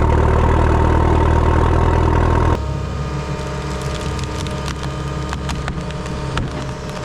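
Plow truck engine running loudly and steadily, cut off abruptly about two and a half seconds in. After that comes a quieter steady hum with scattered sharp cracks and crunches.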